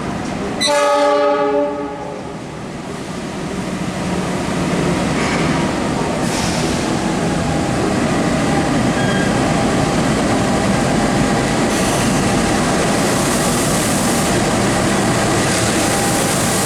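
A CC206 diesel-electric locomotive's horn sounds one blast of about a second. The passenger train then rolls through with a steady running noise and wheel clatter that builds over a few seconds and holds.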